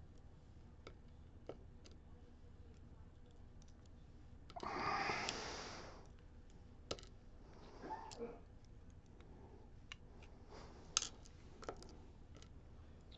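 Small scattered clicks of lock parts being handled, with a louder rushing noise lasting about a second and a half about five seconds in and a sharp click near eleven seconds.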